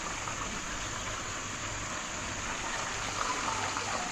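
Steady hissing and sizzling from the pot cooking on the gas stove.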